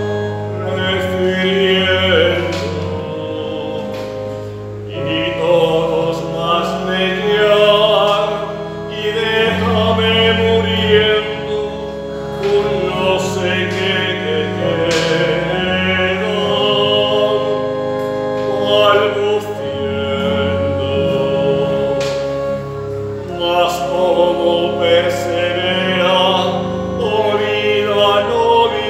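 A solo male voice sings a sacred song with a wavering vibrato over held organ chords from an electronic keyboard.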